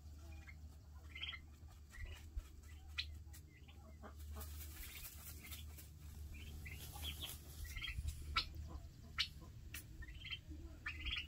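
Baby turkeys (poults) peeping, many short high calls scattered through, with sharp scratchy clicks as they flick sand about in a dust bath.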